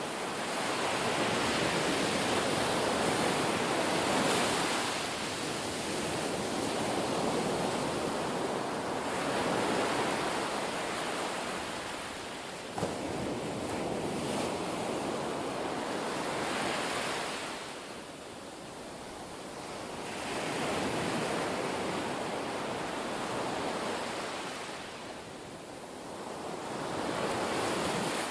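Ocean surf: a rush of breaking waves that swells and ebbs every several seconds, with a brief click about halfway through.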